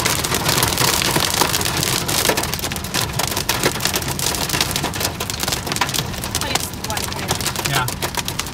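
Heavy storm rain pelting the car's windshield and roof, heard from inside the cabin: a loud, dense, steady patter of sharp hits that eases slightly a few seconds in.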